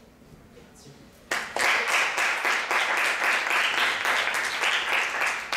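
Audience applauding, starting suddenly about a second in and keeping up steadily.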